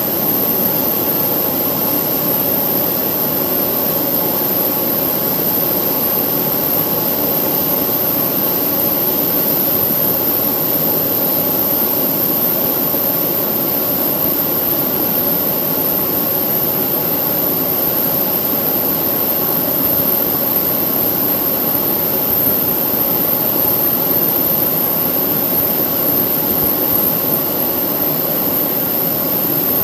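Airbus A320 jet engines running steadily nearby: a constant rumble with a high, steady whine over it.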